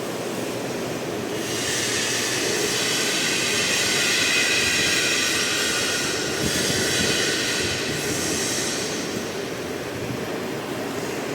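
Blue Elephant ELECNC1836 CNC nesting router running under test: steady machine noise throughout, with a louder high-pitched whine of the spindle cutting from about a second and a half in until near the end.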